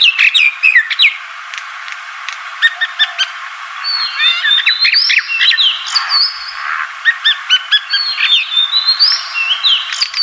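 Yellow-vented bulbuls calling: quick chirping notes and short sliding whistles, several overlapping, over a steady hiss, growing busier about halfway through.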